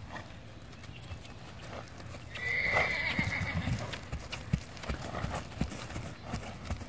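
A horse walking on grass under a rider, its hooves giving soft, uneven thuds. A brief high call sounds about two and a half seconds in.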